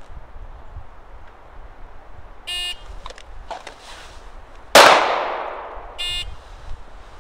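A shot timer's electronic start beep, then about two seconds later a single loud shot from a Glock 19 9mm pistol that rings out and fades. A second short beep follows about a second after the shot.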